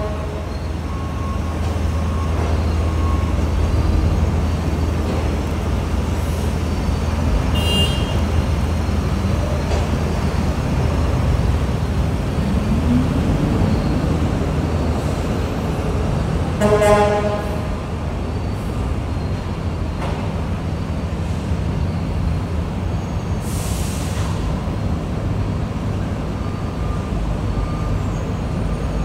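Freight train of container flatcars carrying trash containers rolling steadily past at close range: a continuous low rumble of wheels on rail. A short horn toot sounds about 17 seconds in.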